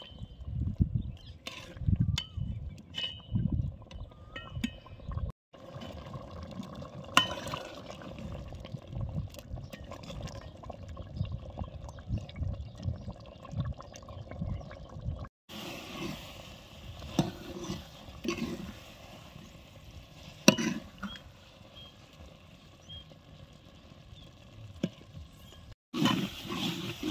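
A metal spatula stirs thick mutton curry in a metal cooking pot, scraping and clinking against the pot's sides with wet squelching in irregular strokes.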